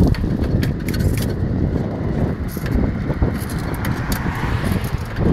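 Wind rumbling on the microphone of a camera carried on a moving bicycle, with scattered clicks and rattles from the ride.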